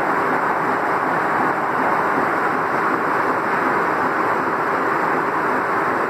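Steam-powered sawmill machinery running steadily: a constant, loud mechanical rush with a faint steady hum underneath, with no cut being made.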